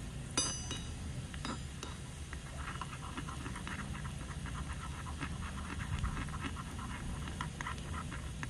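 A small metal spatula stirring and scraping chopped garlic frying in oil in a miniature metal wok, with a ringing metal clink about half a second in. Crackling pops of the sizzling oil run through the rest.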